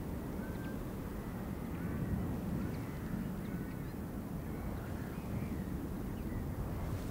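Steady low wind rumble with birds calling: many short, scattered calls.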